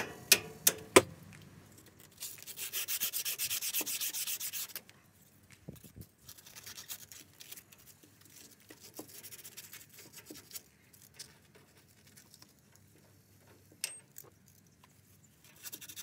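A few sharp clicks, then a burst of quick back-and-forth rubbing strokes for about two and a half seconds as the ball joint stud on a truck's steering knuckle is scrubbed by hand. After that come fainter scraping and a few light taps.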